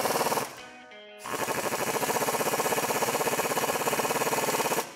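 Power tool driving a 15 mm swivel socket on an extension to tighten transmission mount bolts, with a fast hammering rattle. One run stops about half a second in, and a second starts a little over a second in and runs for about three and a half seconds.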